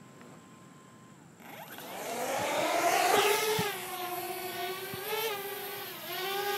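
Parrot Bebop quadcopter's motors and propellers spinning up about a second and a half in, a rising whine as it lifts off, then settling into a steady hum with small wobbles in pitch as it hovers.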